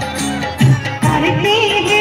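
Hindi devotional song (bhajan): a woman singing a melody over instrumental accompaniment with a steady drum beat.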